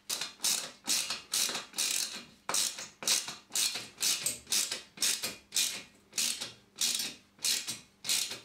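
Hand screwdriver driving a fixing screw through a steel TV wall bracket into a plastic wall plug, in short rasping strokes at about two a second.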